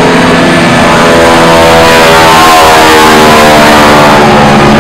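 Boeing Stearman biplane's radial engine and propeller running loud at display power as it flies past. The engine note shifts in pitch about halfway through.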